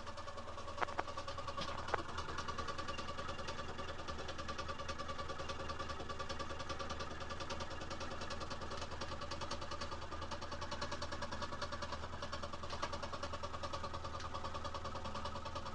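Candle solid-fuel boiler pulsing in a rapid, steady rhythm while being kindled. The firing is unstable at startup, making the boiler shake and puff smoke out from below; the owner doesn't know why. A few light knocks come in the first two seconds.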